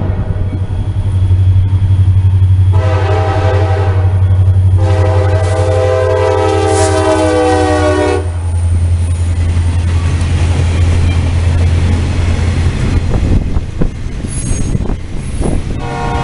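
CSX diesel locomotive passing close by: its engine rumbles steadily while the horn sounds two blasts, the second longer. Freight cars then roll past, with a few brief high squeals from the wheels, and the horn starts again right at the end.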